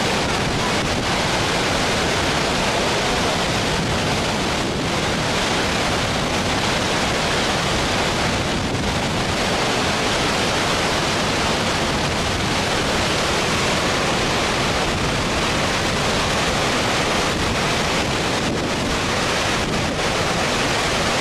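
Muddy floodwater pouring over a weir and rushing downstream: a loud, steady, unbroken rush of water.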